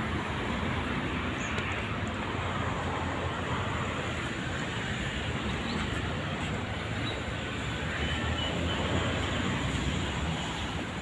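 Steady roadside traffic noise, an even hum and hiss with no distinct events.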